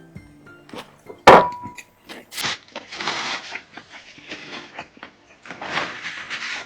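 Close-miked eating at a table: one loud knock about a second in with a short ring, like tableware set down. Two long, noisy mouth sounds of eating follow, over faint background music.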